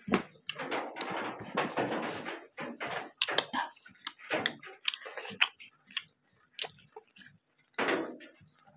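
Two people chewing and eating with their hands: close, irregular smacking mouth sounds with a brief quieter stretch a little past the middle.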